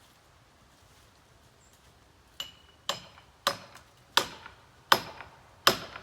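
A tool striking repeatedly: sharp knocks with a short metallic ring, starting about two and a half seconds in and coming about once every 0.7 seconds, each a little louder than the one before.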